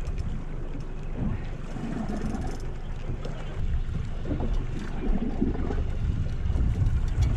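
Wind rumbling on the microphone and water washing around the stern of a small boat, with its Suzuki outboard running low underneath; the rumble gets louder near the end.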